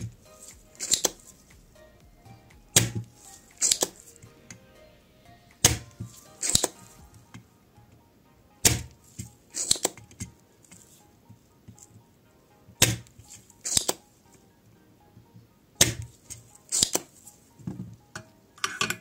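A spring-loaded desoldering pump (solder sucker) being fired and re-cocked over and over as it pulls molten solder out of a circuit board's through-holes. Each cycle is a loud, sharp snap followed about a second later by a softer click, repeating roughly every three seconds, seven times.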